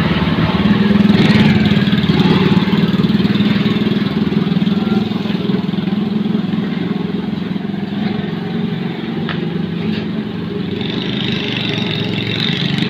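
A small vehicle engine running steadily, a low hum that carries on without a break.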